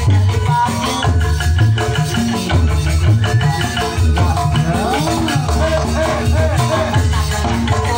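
Gamelan music accompanying a Balinese joged dance, with a strong bass, steady rhythmic percussion including a rattling, shaker-like sound, and a melody that glides in pitch.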